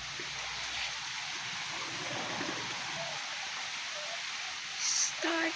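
Steady rain falling, an even hiss with no break, with a brief high-pitched sound near the end.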